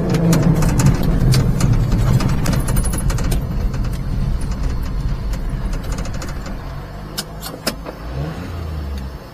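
Daihatsu Hijet mini truck's carbureted engine winding down and running low as the truck slows and rolls off the road onto gravel, after the supercharger drive belt has flipped over and the boost is gone. The sound grows gradually quieter, with a few sharp clicks near the end.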